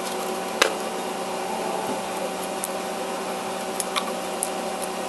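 A steady mechanical hum with faint steady tones, and a few sharp metal clicks from a hand wrench working the valve cover bolts, one about half a second in and another about four seconds in.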